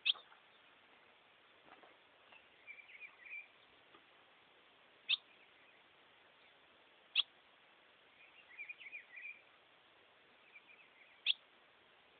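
Ultramarine grosbeak (azulão) calling: four sharp, short call notes, the first right at the start, then about five, seven and eleven seconds in. Between them come two brief runs of soft twittering.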